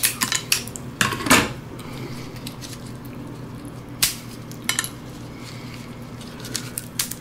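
Cooked crab claw being cracked and picked apart by gloved hands with a small metal utensil: a handful of sharp shell clicks and light metal clinks, spaced a few seconds apart, over a faint steady low hum.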